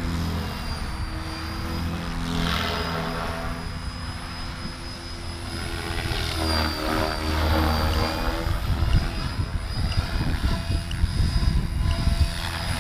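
Electric RC helicopter (Gaui X6 with a Scorpion HKIII-4035 500kv brushless motor on 12S and 550mm main blades) in flight, its main rotor whirring over the motor and gear whine. The sound sweeps and swells around the middle as the helicopter moves across the field, and a ragged low rumble runs under it over the last few seconds.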